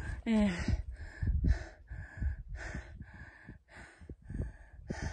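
A climber breathing hard from the exertion of the ascent, in and out about twice a second, close to the microphone, after a short falling voiced sigh at the start.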